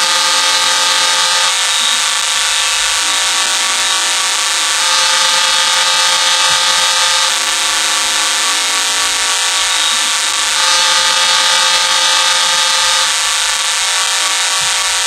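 Loud, sustained horn of several steady tones sounding together without a break, its chord shifting every two to three seconds.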